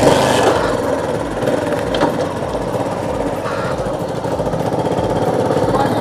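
Motor vehicle engine running steadily with a fast, rough pulse.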